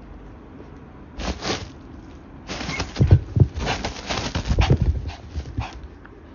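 A wet toy poodle being rubbed dry with a towel, right after its bath. There is a short burst of rubbing and rustling about a second in, then a longer, uneven stretch of it, with the dog's own snuffling sounds.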